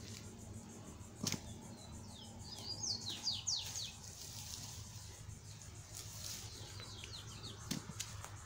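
A songbird calling in quick runs of falling chirps, a longer run about two seconds in and a shorter one near the end. Two sharp knocks, about a second in and near the end.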